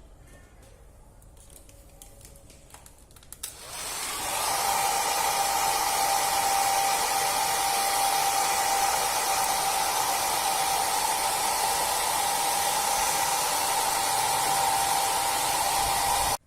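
A small electric motor blowing air, in the manner of a hair dryer, switches on about three and a half seconds in. It builds within a second to a steady, loud rushing hiss with a steady whine in it, then cuts off suddenly near the end.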